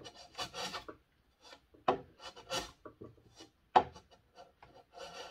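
Low-angle block plane set very shallow, taking short cuts across the end grain of a dovetail pin: about six separate scraping strokes, several starting with a sharp click as the blade bites.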